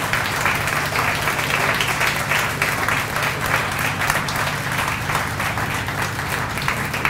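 Audience applauding: many hands clapping steadily at the end of a poetry reading, over a steady low hum.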